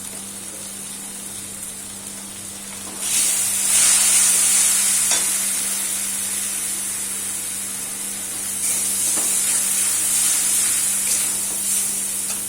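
Spiced onion-garlic masala paste frying in mustard oil in a pan, sizzling steadily while it is stirred with a spatula. The sizzle gets louder about three seconds in.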